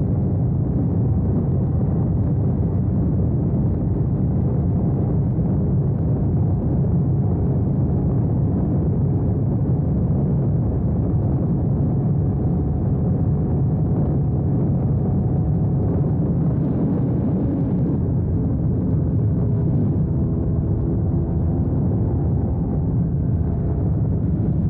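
Yamaha R1's crossplane inline-four running at steady high revs at speed, half buried under heavy wind rush on the mic; the engine note climbs a little near the end.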